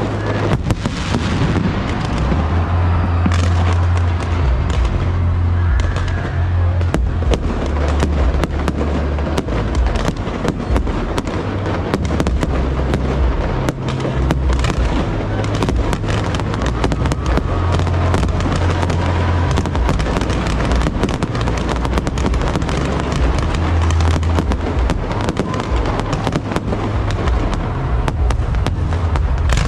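Aerial fireworks display: a dense, continuous run of sharp crackles and bangs over heavy low booms from the bursting shells.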